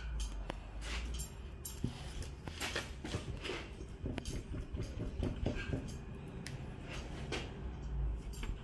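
Handling noises as butcher's string is drawn and tied around a leg of lamb: scattered soft rubs and light clicks of string, hands and meat on the cutting board, with a low rumble near the start and again near the end.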